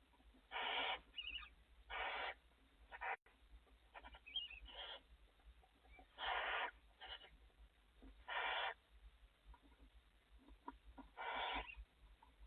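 Barn owls in a nest box giving repeated hissing, snoring calls, each about half a second to a second long and coming every second or two, with a faint short high chirp about four seconds in.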